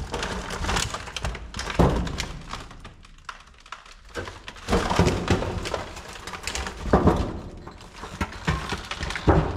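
Irregular crunching footsteps and thuds of someone walking over rubbish and debris, with a quieter lull about three seconds in.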